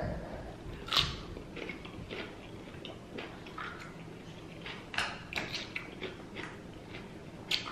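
Close-up eating sounds: biting and chewing food, with sharp wet clicks and crackles, the strongest about a second in, around five seconds in and near the end.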